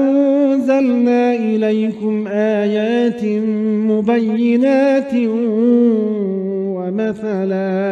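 Male reciter chanting the Quran in Arabic, drawing out the end of a verse as one long ornamented note with a fast waver. The pitch sinks a little over the last seconds and breaks off briefly near the end.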